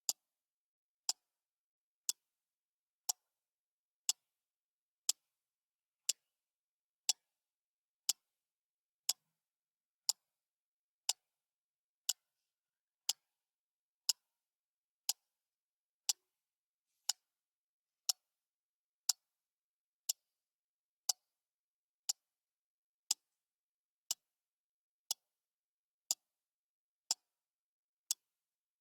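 Clock ticking once a second: sharp, even ticks with silence between them.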